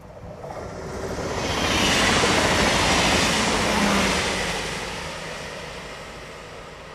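Two coupled ÖBB Cityjet electric multiple units passing close by on the main line: a rushing wheel-and-rail and wind noise that swells over about two seconds, peaks, then fades away as the train recedes.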